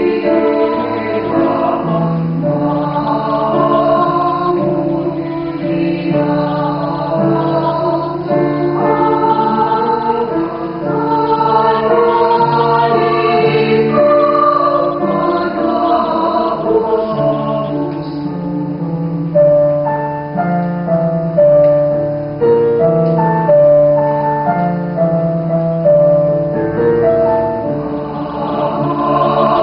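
Mixed choir of men's and women's voices singing a hymn in harmony, holding long chords that give way to shorter, moving notes about two-thirds of the way through.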